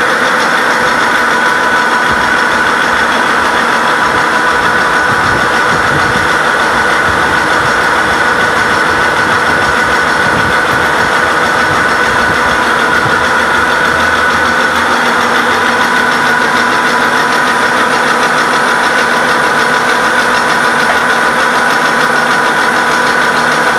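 Heavy-duty all-geared vertical milling machine running, giving a steady whine of several even tones over a constant mechanical noise.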